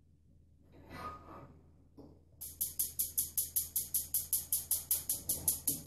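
Gas stove's spark igniter clicking rapidly and evenly, about six sharp clicks a second, as the burner knob is held to light the gas. A soft rustle and a single click come just before the clicking starts.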